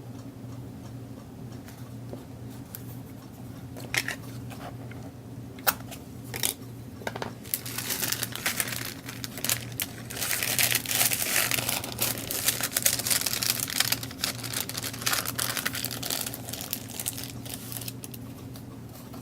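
Crinkling and rustling of craft materials being handled, a few sharp clicks at first, then steady crackly crinkling through most of the second half. A low steady hum sits underneath.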